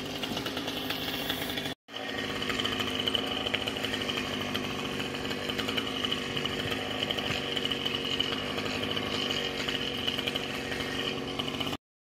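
Chainsaw running steadily while cutting through the top of a pine trunk. The sound breaks off briefly about two seconds in and stops abruptly near the end.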